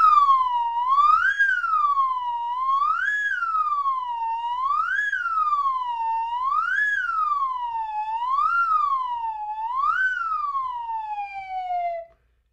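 Cartoon siren wailing: a single pitch that rises quickly and falls more slowly about once every two seconds, seven times over, then winds down in one long falling glide and stops shortly before the end.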